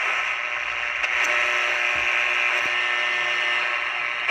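Pocket radio's small speaker giving out steady static hiss between stations as its thumbwheel dial is turned, with a few faint clicks.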